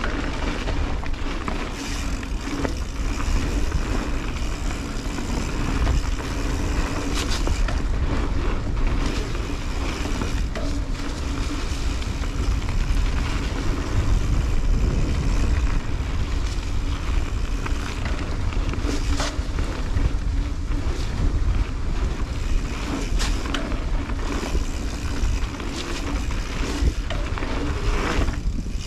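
A 2021 Santa Cruz 5010 mountain bike riding a dirt singletrack trail: steady tyre roll and heavy wind rumble on the mounted microphone, with scattered sharp clicks and knocks of bike rattle and trail impacts.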